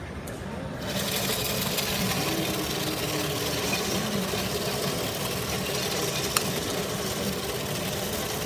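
Ice-shaving plate machine starting up about a second in and then running steadily: its motor and blade shaving block ice into the mould make an even hiss. There is one sharp click a little past the middle.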